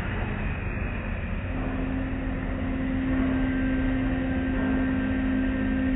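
Automatic car wash spraying water and foam over a car, heard from inside the cabin as a steady rushing wash with a low rumble. A steady low hum from the wash machinery comes in about a second and a half in.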